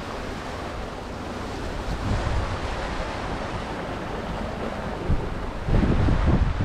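Water rushing past the hulls of a sailing catamaran under way at about 8 knots, with wind buffeting the microphone, heavier in the last second or so.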